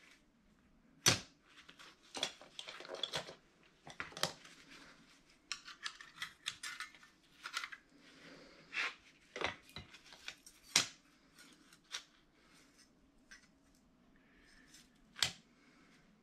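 Steel plates from a Ford 8000 tractor's PTO clutch pack clinking and scraping as they are handled on a workbench: scattered sharp metal clinks, a few louder than the rest, with light rubbing between.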